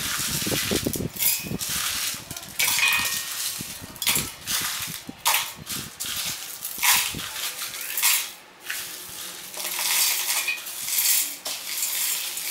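Dry-roasted whole spices (seeds, dried red chillies, bay leaves) rattling and clattering in irregular bursts as they are scraped off a plate into a small stainless steel mixer-grinder jar.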